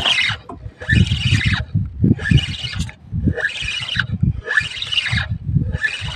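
Spinning reel being cranked in short bursts, about one a second, a whirring squeak with each run of turns as the rod is pumped and line wound in on a hooked fish. A low rumble runs underneath.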